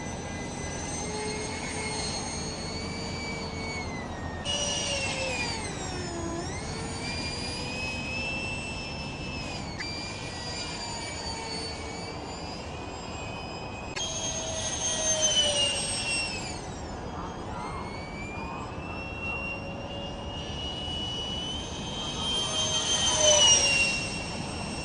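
Electric ducted-fan RC model F-5E jet flying past repeatedly: a high-pitched whine that holds steady, then swoops down in pitch each time the plane goes by. It grows louder on two close passes, the second near the end.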